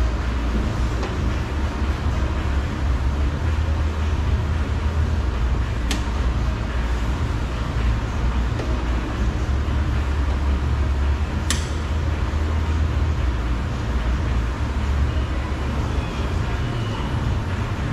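Steady low rumble of background noise, with a couple of sharp clicks about six and eleven seconds in as the door-lock screws are worked out with a T30 Torx driver.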